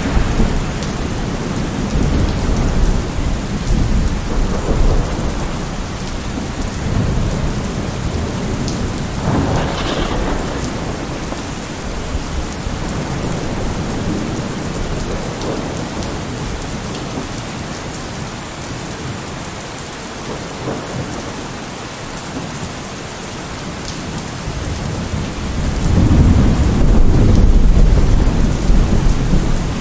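Heavy rain falling steadily in a thunderstorm, with rolling thunder. The thunder rumbles at the start, cracks briefly about ten seconds in, and swells into a long, loud roll near the end.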